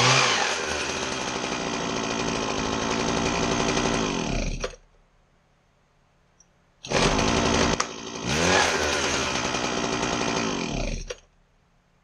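Husqvarna 122HD60 hedge trimmer's small two-stroke engine running, with a brief rev, then stopping abruptly about four and a half seconds in. It runs again from about seven seconds, revs once more and stops again about eleven seconds in.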